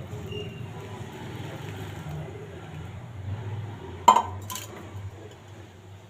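Two sharp clinks of hard kitchenware about half a second apart; the first is the louder and rings briefly. A steady low rumble runs underneath.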